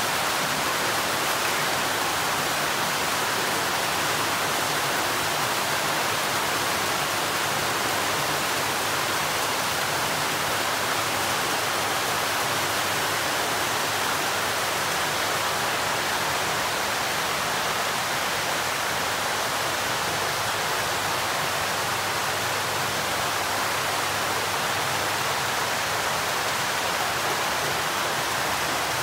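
Water pouring and splashing steadily into a concrete koi tank from an inlet pipe, an even rushing noise without a break.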